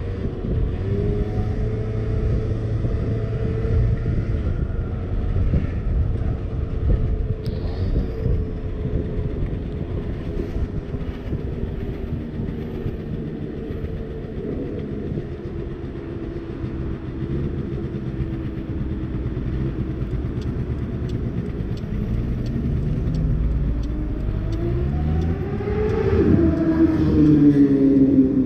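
50cc scooter engine running while riding, its pitch rising and falling with the throttle, getting louder and higher near the end.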